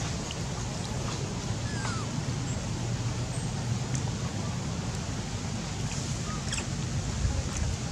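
Steady outdoor background noise with a low rumble and a faint hiss, with a few faint short chirps, one about two seconds in.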